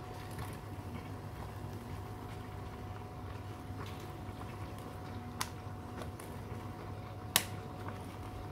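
Hands working the top of a plastic self-heating meal pouch through a cloth towel, trying to zip it shut: a few sharp plastic clicks, the loudest about seven seconds in, over a steady low hum.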